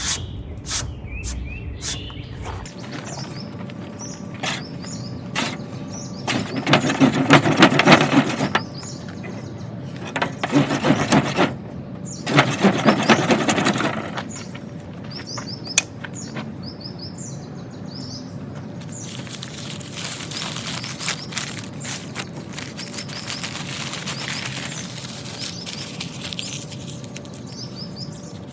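Fire roll being worked: a wooden board rolled hard back and forth over a cotton-and-ash wad on a bottom board, in three scraping bursts of about two seconds each. Small birds chirp throughout, and a softer steady hiss comes in the second half.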